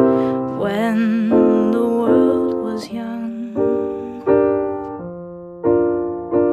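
Keyboard playing a slow series of struck chords, about one a second, each fading away, under a woman's sung note held with vibrato over the first few seconds.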